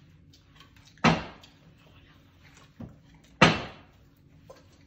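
Small plastic water bottle being flipped and hitting the tabletop: a sharp knock about a second in, a faint tap, then a second loud knock about three and a half seconds in.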